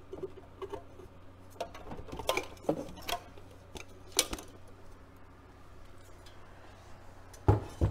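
Scattered clicks and light knocks of a console stereo's idler-drive turntable being handled and examined, with a louder thump near the end. A steady low hum runs underneath.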